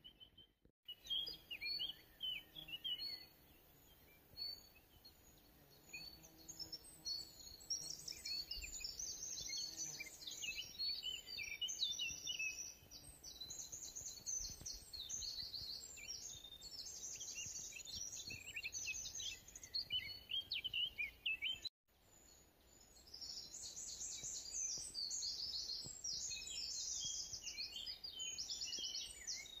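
Several songbirds singing in woodland, a busy mix of chirps and quick trills, with faint outdoor background noise. The sound cuts out briefly about two-thirds of the way through.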